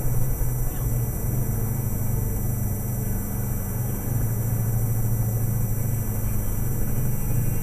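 Steady low engine and road drone of a vehicle, heard from inside its cab, growing a little louder about halfway through, with a faint steady high-pitched whine over it.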